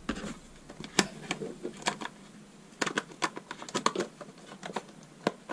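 Light plastic clicks and rattles from a ZOWFUN Mobius 1:16 scale RC truck's battery compartment cover being pressed shut and the plastic chassis handled: scattered single clicks, then a quicker run of them in the second half.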